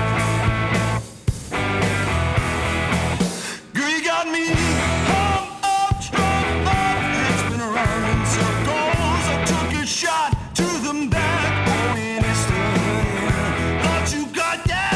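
Rock music instrumental passage: guitars and bass with a gliding lead line, briefly dropping out a few times.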